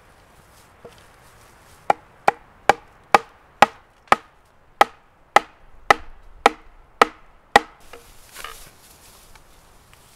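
Sapling legs being knocked into holes in a log sawhorse: about a dozen sharp wooden knocks, roughly two a second, then rustling in dry grass near the end.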